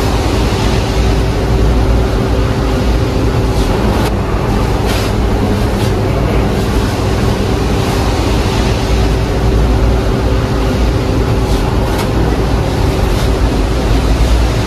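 Steady loud machine hum with a rushing noise and a few faint clicks.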